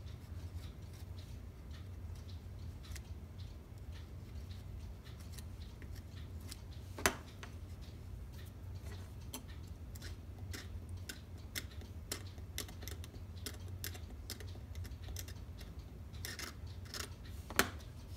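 Small scissors snipping while trimming the new covering of a cuckoo clock bellows: a scatter of short, light snips, with two sharper clicks about seven seconds in and near the end, over a steady low hum.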